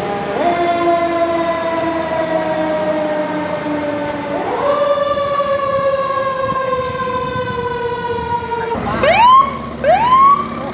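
Fire engine siren running code 3: it climbs quickly in pitch, then slowly falls. About four seconds in it climbs again and falls off once more. Near the end a police motorcycle's siren gives two short, sharp rising whoops about a second apart.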